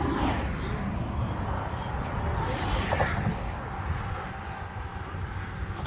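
Steady outdoor traffic noise with a low, irregular rumble of wind on the microphone.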